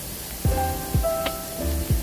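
Background music with a steady kick-drum beat and held synth-like notes, over a faint hiss of rain.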